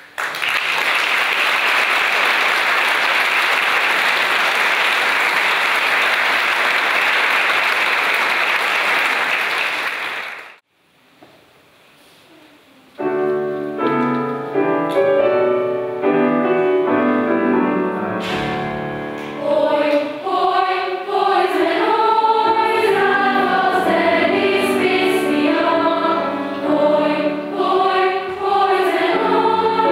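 Audience applause for about ten seconds, then a short pause. A piano starts an introduction, and a few seconds later a youth choir comes in singing over the piano.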